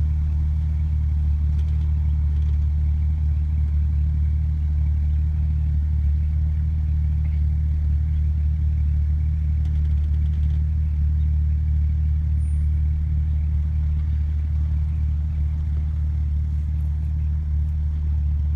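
Off-road 4x4's engine idling steadily, a low, even drone.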